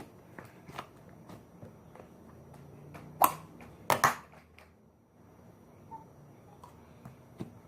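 Slime being worked by hand: faint scattered clicks, with two sharp pops about three and four seconds in.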